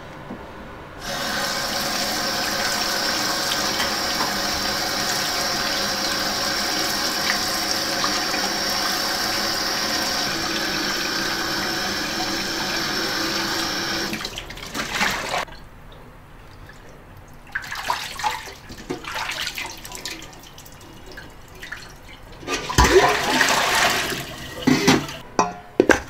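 Water from a tap running hard into a sink or basin for about thirteen seconds, then shut off. Irregular short knocks and handling noises follow.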